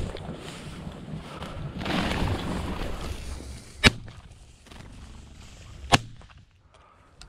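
Rustling through tall dry grass, then two shotgun shots about two seconds apart, fired at flushed game birds in flight.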